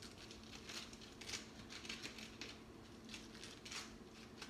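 Faint, irregular soft rustles and crinkles of hands working a steamed savoy cabbage leaf into a roll.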